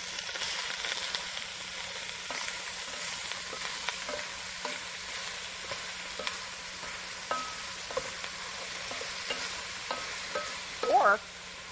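Ground beef frying and sizzling in oil in a large soup pot, with a steady hiss. It is being stirred and broken up with a utensil that clicks and scrapes against the pot now and then.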